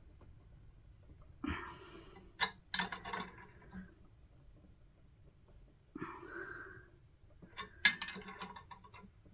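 Two bouts of straining on a seized bolt. Each is a forced breath or grunt followed by sharp metallic clicks and knocks of the tool on the fitting. The loudest click comes late in the second bout.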